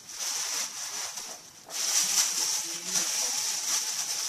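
Packing material rustling and crinkling as items are handled and dug out of a box, with a short lull and then louder from about two seconds in.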